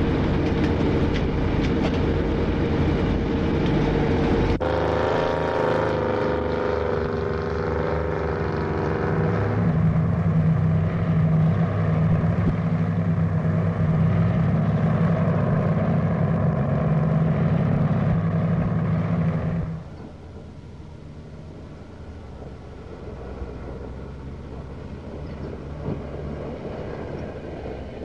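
A seismic thumper truck's engine runs loudly and steadily, its note changing about five seconds in and again near ten seconds. About twenty seconds in the sound drops suddenly to a quieter, more distant vehicle engine.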